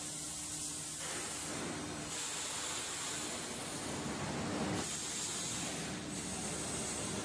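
Vacuum forming machine running through a forming cycle: a steady low hum under hissing air that shifts in strength several times, about one, two, five and six seconds in.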